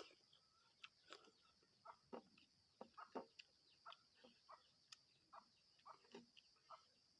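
Mouth sounds of eating: wet chewing and lip smacks coming irregularly two or three times a second, faint.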